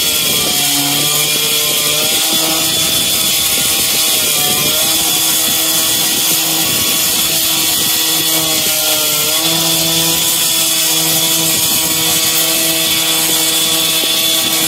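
A small engine running steadily, its pitch dipping briefly and recovering twice, over a constant hiss.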